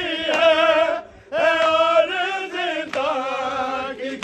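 A man chanting a noha, an Urdu mourning lament, in long wavering held notes. The voice breaks off briefly about a second in, then carries on.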